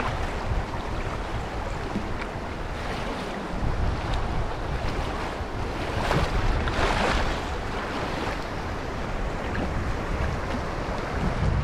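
Fast, choppy river water rushing and slapping around a canoe, with wind buffeting the microphone in a low rumble. The water swells louder for a moment about six seconds in.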